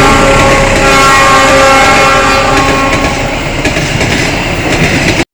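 Railway locomotive horn sounding the semboyan 35 signal, a chord of several tones held for about three seconds over the rumble and clickety-clack of the passing train. The train noise cuts off suddenly at the end.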